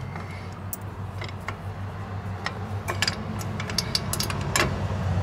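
Scattered light metallic clicks and taps of drum brake hardware (springs, adjuster, shoes) being handled, over a steady low hum.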